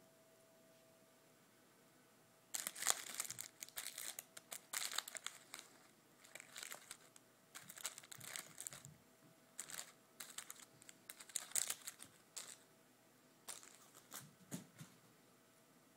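Candy wrapper crinkling in repeated irregular bursts, starting a couple of seconds in and stopping shortly before the end.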